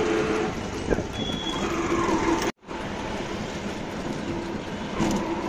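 Auto-rickshaw engine and road noise heard from inside its open-sided passenger cabin while it drives through traffic: a steady, noisy rumble with a sharp click about a second in. The sound cuts out for a moment a little past halfway.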